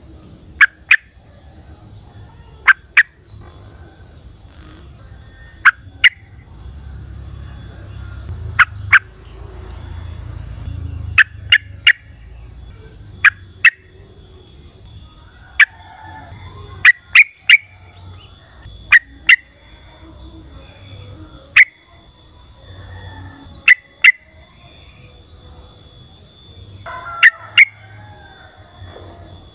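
Yellow-vented bulbul (trucukan) calling in short, sharp notes, often in pairs, every second or two. Under the calls run a steady high drone and pulsed chirping from insects.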